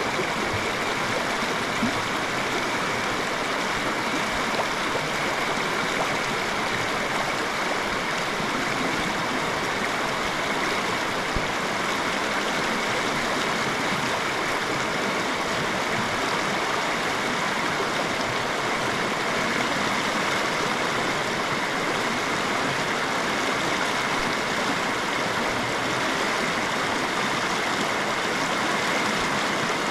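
Shallow, rocky stream flowing over stones in riffles: a steady, even rush of water.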